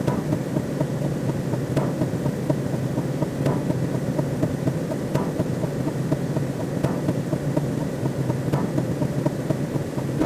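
Synthesized sci-fi space sound effect: a steady low rumbling drone, with a faint click about every second and a half to two seconds.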